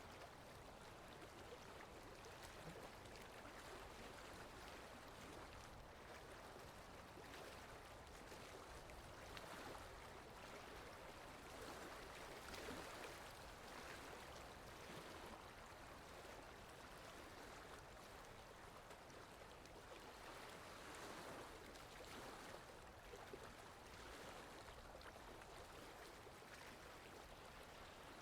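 Faint lake water lapping, a soft, even wash that swells gently now and then.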